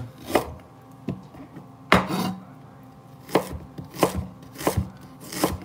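Chef's knife slicing peeled fresh ginger on a cutting board: separate, irregular knife strikes about once a second, the loudest about two seconds in.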